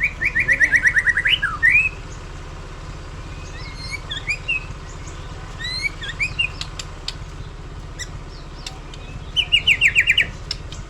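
White-rumped shama singing: a fast rattling run of repeated whistled notes, then varied slurred whistles and sharp clicks, and another fast run of repeated notes near the end, over a steady low hum.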